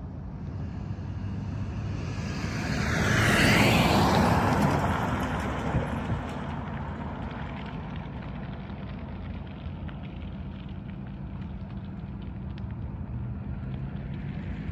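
A car drives past close by. Its tyre and engine noise swells to a peak about four seconds in, drops in pitch, and fades as it moves away, over a steady low hum.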